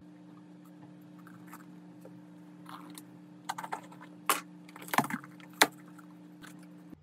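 Plastic stretch wrap on a cardboard parcel being slit with a blade and pulled off by hand. Film crinkles and snaps in a string of sharp crackles, loudest in the second half, over a faint steady hum.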